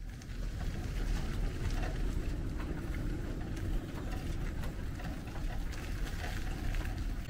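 Steady outdoor background noise: a low rumble with a hiss and faint scattered ticks over it.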